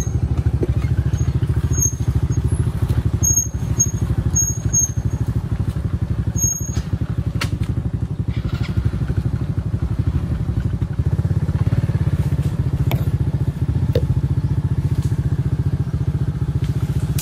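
Small engine running steadily at an even speed, with a few short high chirps over it in the first several seconds.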